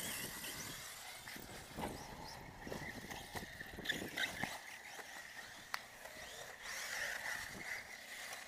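Electric off-road RC buggies racing on a dirt track: a steady high motor whine, with scattered clicks and knocks from the cars.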